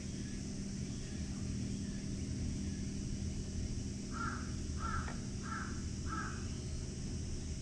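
A crow cawing four times in a row, a little under a second apart, starting about four seconds in, over a steady low outdoor background rumble.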